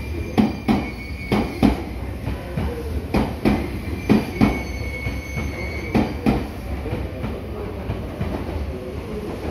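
Meitetsu commuter train moving along the platform, its wheels clacking over rail joints in pairs with a thin wheel squeal at times; the clacks die away after about six seconds.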